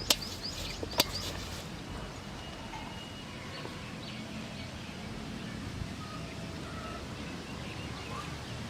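Outdoor ambience with small birds chirping: a quick run of short high notes in the first second or so, then a few faint calls over steady background noise. Two sharp clicks, the loudest sounds, come right at the start and about a second in.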